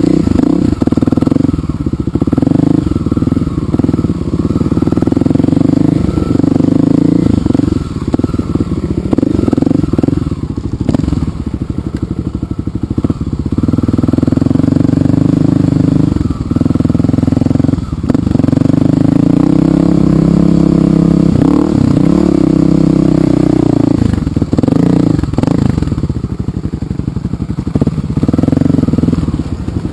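Dirt bike engine running as the bike rides over a rough gravel trail, its pitch rising and falling with the throttle and easing off several times. Short knocks and rattles from the rough ground come through over the engine.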